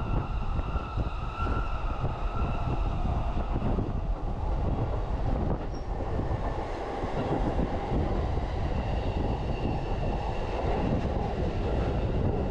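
Electric commuter train running at speed, heard from inside the passenger car: a steady rumble of wheels on rail, with faint high whining tones that fade and come back.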